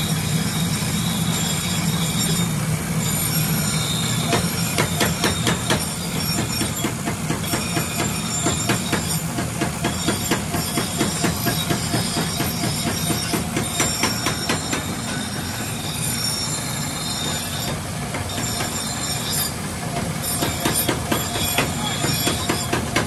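Belt-driven abrasive grinding wheel running with a steady low hum while a forged steel pickaxe head is pressed against it, giving a continuous high grinding screech with rapid rattling.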